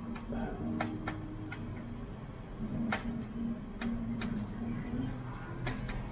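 Light sharp clicks and taps at uneven intervals, about eight in all, over a steady low hum.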